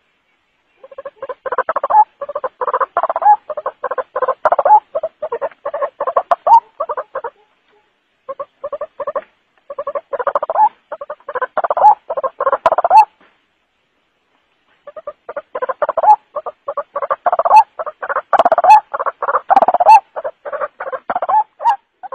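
White-breasted waterhen calling: fast runs of harsh, repeated croaking notes at about four or five a second. It comes in three long bouts, with short breaks about seven seconds in and around thirteen to fifteen seconds in. This is a recorded lure call used to draw waterhens out of cover.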